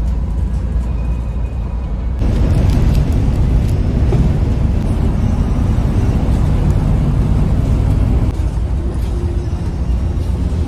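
Scania coach running on the road: steady low engine rumble with road noise, which grows louder about two seconds in and eases back near the end.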